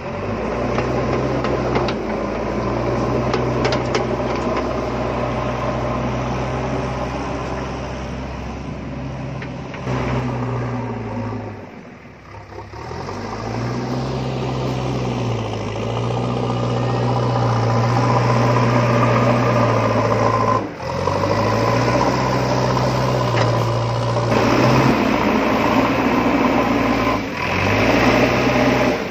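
Small electric motor and plastic gearbox of a wired remote-control toy backhoe loader running with a steady whirring hum. The pitch sags and shifts as it drives, and it cuts out briefly a few times.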